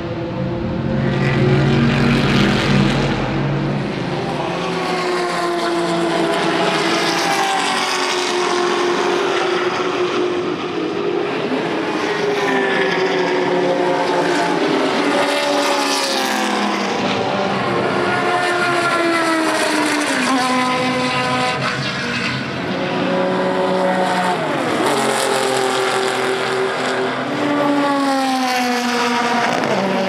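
Vintage race cars running on track, several engines at once, their pitch repeatedly climbing and dropping back as they rev. A deep, close engine rumble in the first few seconds thins out after about five seconds.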